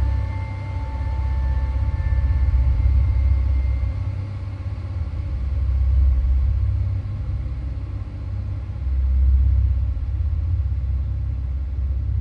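A deep, low rumbling drone that swells and fades every few seconds, with faint high ringing tones dying away in the first couple of seconds.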